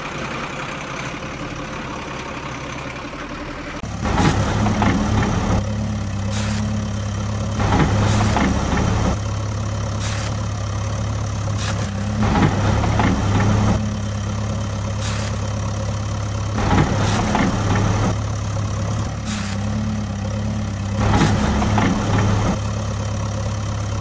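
Heavy excavator engine sound running steadily at a low pitch, growing louder about four seconds in. Short bursts of rushing noise come every second or two over the hum, as the excavator digs and scoops sand.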